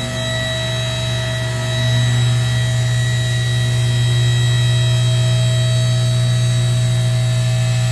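Electric hydraulic pump motor of a two-post vehicle lift running steadily as it raises a minivan, a loud even hum that grows a little louder about two seconds in.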